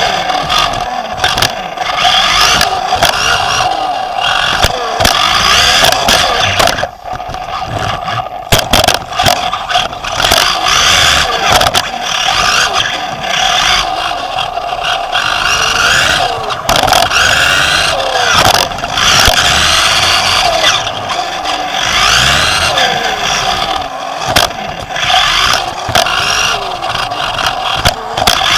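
Electric motor and drivetrain whine of a Team Associated B5M 2WD electric RC buggy with a Nosram Comet HD brushless motor racing flat out, the pitch rising and falling again and again with throttle. Sharp knocks and scrapes from jumps, landings and tyres on the clay run through it.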